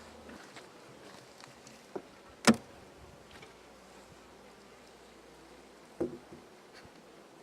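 Honeybees buzzing around an open hive, with a sharp knock about two and a half seconds in and another about six seconds in.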